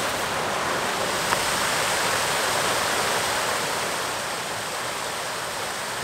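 Mountain river water rushing over small waterfalls and cascades: a steady, even rush that becomes a little softer in the last couple of seconds.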